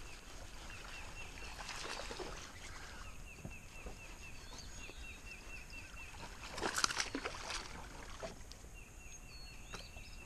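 A small hooked fish splashing at the water's surface for about a second, roughly two-thirds of the way in, as it is reeled in. Behind it, runs of short high chirps repeat several times a second.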